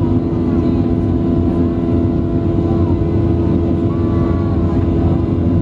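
Boeing 737's turbofan engines heard from inside the passenger cabin during the climb after takeoff: a loud, steady drone with a few constant humming tones under a broad rush of noise.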